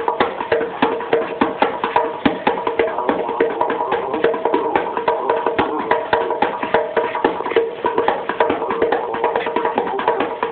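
Bongos played in a fast, busy rhythm of hand strikes, with a steady held tone under the strikes.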